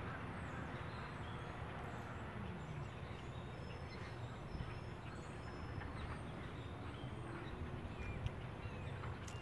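Steady outdoor background noise with faint, scattered high bird chirps.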